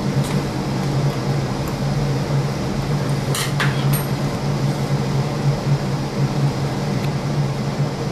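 Steady fan-like mechanical hum, with a brief clink or tap about three and a half seconds in.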